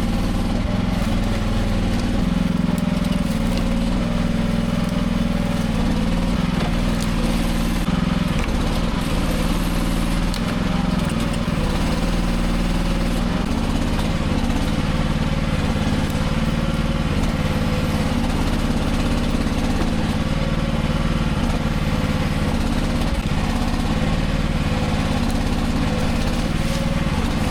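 Small engine of a mini excavator running steadily at an even speed.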